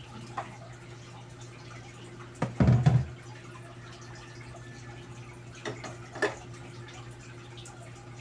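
A lidded pot is set down in a stainless-steel sink with one loud clunk about two and a half seconds in, followed by a couple of lighter knocks, over a steady low hum.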